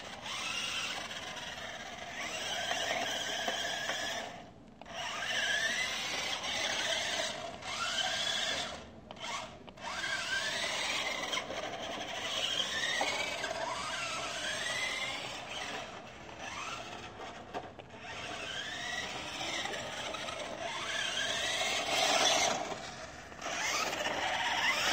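Tyco Jack Knife radio-controlled truck's electric drive motor and gearbox whining as it drives on concrete, the pitch rising each time it speeds up. The sound briefly drops away about four and nine seconds in when the truck stops.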